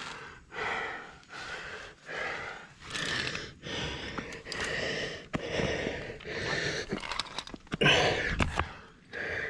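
A rock climber panting hard close to a head-mounted microphone, about one loud breath a second, while working up a hand-jam crack, with a few sharp clicks of gear or shoes on rock in between. The strongest breath comes near the end.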